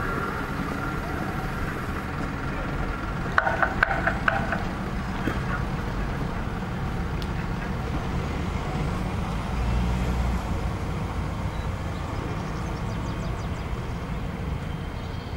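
Steady low rumble and hum of a Citadis 302 light-rail tram standing at a terminus platform. A brief cluster of clicks and short tones comes about three to four seconds in.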